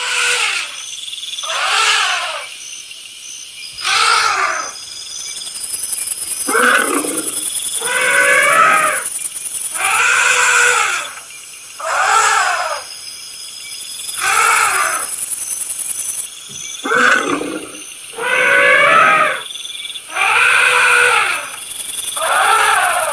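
Elephant trumpeting over and over, about a dozen calls roughly two seconds apart, each rising and then falling in pitch. A steady high hiss runs behind them.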